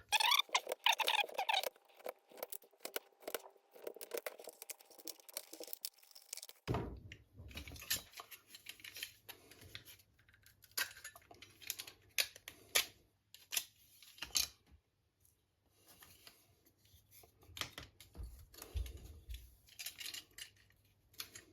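Scattered light clicks, taps and scratching from thin wooden model-kit parts (hull formers) being handled and worked free on the bench. The sound is denser and crackly for the first several seconds, then sparser over a low hum.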